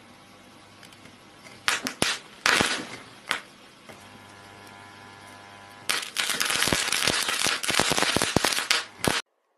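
A gas torch flame hisses on hot metal. A few loud sharp pops follow. About six seconds in, dense loud crackling breaks out as the metal burns and throws a shower of sparks, and it stops suddenly near the end.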